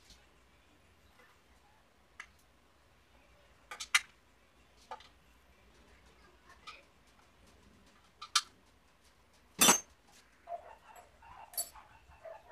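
Scattered metal clicks and clinks of a hand tool working bolts on an automatic transmission's valve body, with one louder metal clank about two-thirds of the way in. Near the end a dog makes short whimpering sounds.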